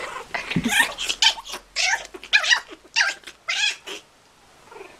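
A puppy and a kitten play-fighting, with a rapid run of about ten short, high-pitched squealing cries over the first four seconds, then they stop.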